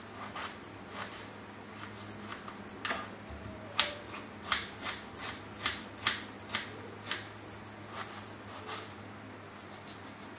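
Kitchen knife chopping a peeled tomato into small pieces on a cutting board: a run of sharp, uneven taps, about two or three a second, that stop shortly before the end.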